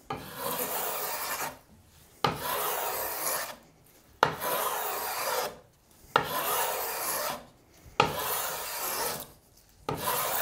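Freshly sharpened Stanley No. 60½ low-angle block plane shaving a soft red cedar paddle edge in six even strokes about two seconds apart. Each stroke starts sharply and hisses for about a second and a half as the blade lifts a thin curl, the sign of a keen edge cutting cleanly.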